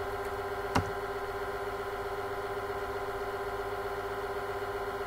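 Steady electrical hum with a fixed pitch and several overtones, from the recording setup, with one sharp click about a second in.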